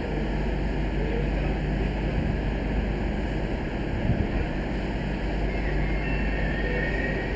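Steady low rumble of a steam-hauled train approaching from a distance, with a faint thin high tone coming in about two-thirds of the way through.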